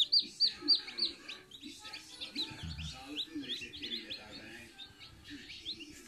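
A brood of Aseel chicks peeping: many short, high, falling peeps, thick in the first second and sparser after.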